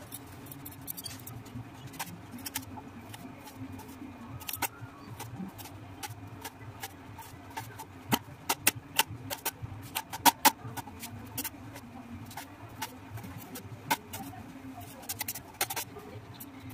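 Kitchen knife cutting on a board: irregular sharp taps, with a run of louder, quicker taps about eight to eleven seconds in, over a steady low hum.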